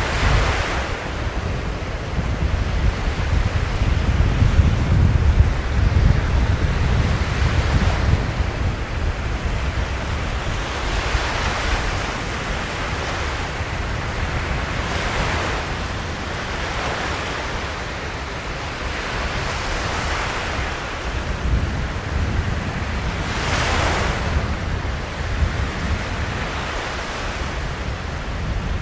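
Rough surf breaking on the shore, its hissing wash swelling every few seconds as each wave breaks. Strong wind buffets the microphone with a steady low rumble.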